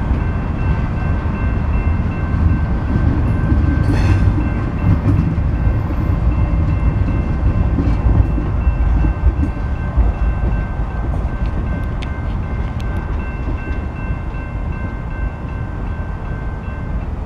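Freight train tank cars rolling through a road grade crossing: a low rumble of wheels on the rails that eases off as the last car goes by. The crossing bell rings steadily over it, mostly falling away near the end.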